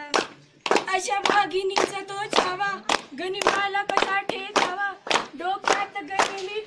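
Young women singing a quick rhythmic chant, with hand claps keeping a steady beat of about three a second.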